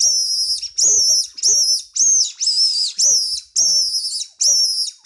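Mouser version 2 fox call, a 3D-printed mouth-blown predator call, sucked and blown to make a run of short, high-pitched squeaks with a wavering pitch, about two a second. It imitates a mouse in distress, used to call in foxes.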